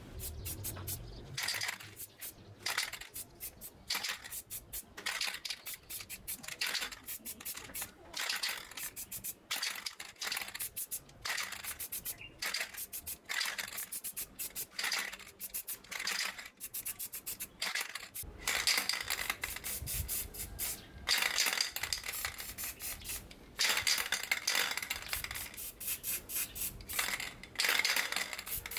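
Repeated hand scraping strokes, about two a second, growing busier and louder in the second half, typical of rust being rubbed off metal with an abrasive.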